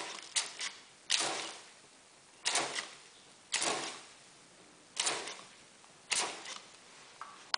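Hand trigger spray bottle spritzing a fine mist over and over, about eight quick hissing sprays roughly a second apart, some in quick pairs, each fading within half a second.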